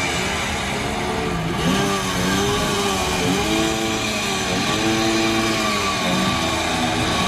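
Engines revving up and down in about five rising and falling swells of roughly a second each, over a steady engine rumble.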